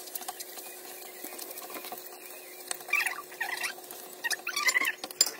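Spatula stirring and scraping mashed plantain with egg and bacon in a nonstick frying pan, with scattered light taps against the pan and a few short high squeaks.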